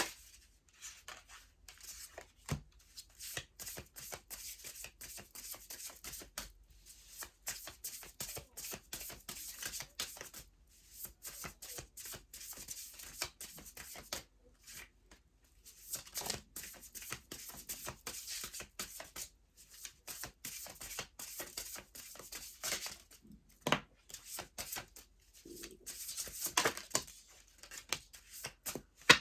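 A deck of angel oracle cards being shuffled by hand: a long run of rapid, crisp card flicks and slides, with two short pauses. It is kind of a weird, awkward shuffle of a deck that is hard to shuffle.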